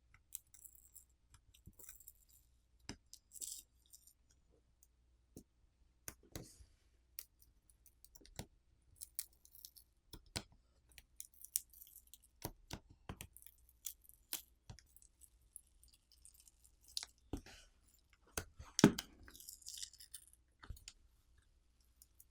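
Scattered small clicks, taps and light scraping of hand tools and tablet parts being handled during disassembly, with one louder knock near the end.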